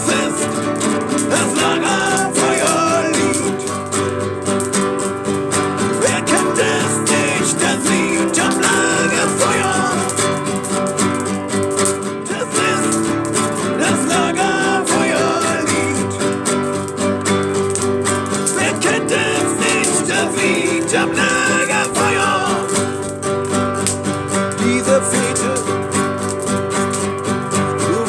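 Song music led by a strummed acoustic guitar, with a melody line moving over the steady chords.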